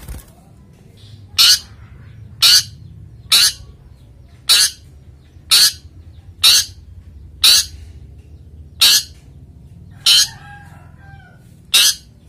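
Long-tailed shrike (cendet) giving short, harsh calls about once a second, ten in a row: the 'toet' call of a male in breeding condition. A low steady hum lies underneath.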